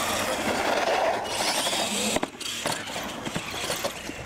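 Radio-controlled monster trucks racing flat out across concrete: motors, drivetrains and tyres running loudly. A sharp knock comes about two seconds in, after which the sound drops off, with a few lighter knocks.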